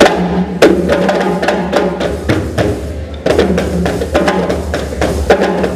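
Music with drums and percussion: a run of sharp strikes over a steady bass line.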